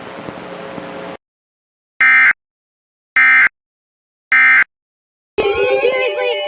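Weather radio static hiss cuts off about a second in. Three short, identical, high-pitched Emergency Alert System data bursts follow about a second apart: the SAME end-of-message code that closes the NOAA Weather Radio tornado watch broadcast. Near the end a loud sound with wavering pitches starts.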